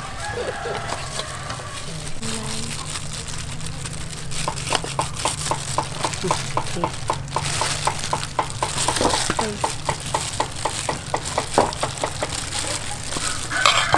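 Spoons scraping on a metal bowl and pushing minced pork into hollowed bitter melon pieces, with soft voices. From about four seconds in, a rapid even series of short high pips repeats about four times a second for several seconds.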